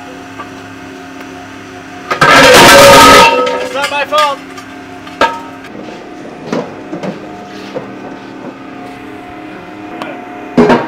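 Aluminum car wheel rims clanging as they are loaded onto a metal hand truck, with one loud rattling metal clatter about two seconds in and a few lighter knocks later, over a steady background hum.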